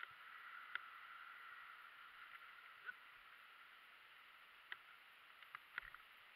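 Near silence: a faint steady hiss, with a handful of light clicks, most of them in the last two seconds.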